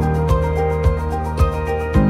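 Background instrumental music with held notes over a steady beat, about two beats a second.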